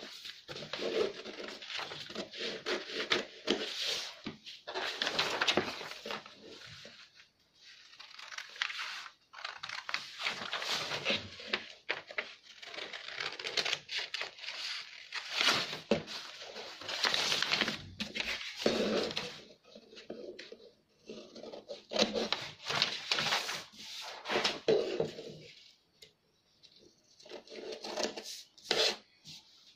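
Scissors cutting along a drawn outline in a sheet of pattern paper: a run of crisp, crunchy snips in spells of a few seconds, with short pauses between them as the sheet is turned.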